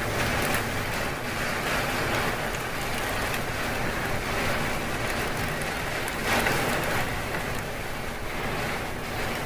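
Storm rain driven by gale-force wind gusts, a steady dense hiss and rumble that swells with a stronger gust about six seconds in.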